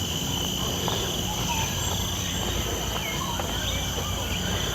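Steady chorus of insects in tropical parkland, several high-pitched drones held at once without a break, with a few short bird chirps over it and a low rumble underneath.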